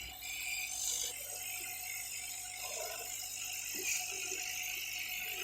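Small 6040 CO2 laser engraving and cutting machine running a job: the laser head's drive motors and belts whirring and rattling as it moves, over a steady hum.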